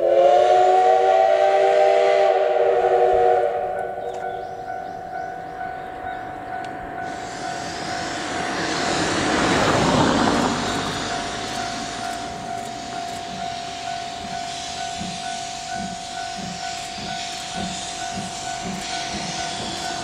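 Steam locomotives of a double-headed C11 325 and C12 66 train starting away: a whistle blast of about three and a half seconds, then a hiss of steam that swells and dies away around ten seconds in. After that a slow, even exhaust chuff begins at about one and a half beats a second.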